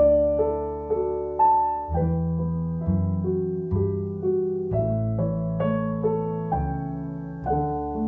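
Background piano music: a melody of single notes over sustained low bass notes.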